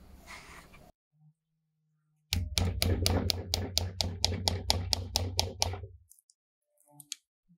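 A small wood-carving chisel digging into the rotten wooden handle of an old screwdriver. It makes a fast, even run of sharp crunching clicks, about five a second, for nearly four seconds, as it cuts away the decayed wood.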